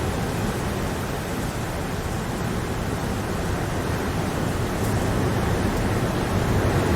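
Rain falling steadily, an even wash of noise without distinct drops or thunder, growing slightly louder near the end.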